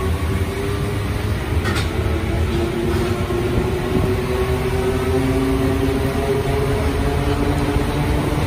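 Inside a Paris Métro MP89CA rubber-tyred train running through the tunnel: a steady rumble with a constant whine holding near one pitch.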